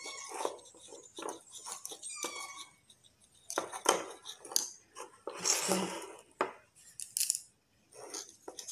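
Plastic spoon stirring and scraping inside a small plastic bowl of thin liquid mixture, with irregular clicks and scrapes against the bowl. The knocks are loudest and busiest in the middle of the stretch.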